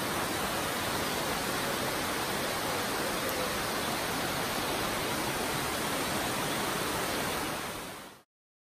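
Rushing water of a tiered waterfall cascading over rock steps: a steady, even rush that fades out about eight seconds in and cuts to silence.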